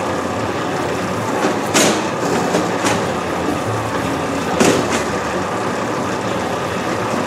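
Steady drone of bakery machinery, with a few sharp slaps and knocks of hands and pretzel dough on a wooden worktable as the strands are rolled out by hand; the two clearest come about two seconds and about four and a half seconds in.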